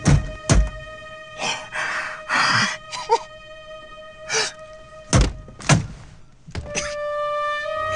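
Acted Tourette's tics over sustained background music: sudden sharp thumps and quick breathy vocal noises, with a short yelp about three seconds in, coming irregularly about a dozen times.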